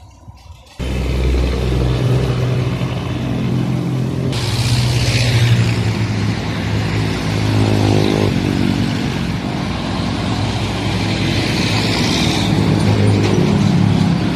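Road traffic passing close by, with a heavy truck's diesel engine running right alongside as a steady low hum. It starts abruptly about a second in.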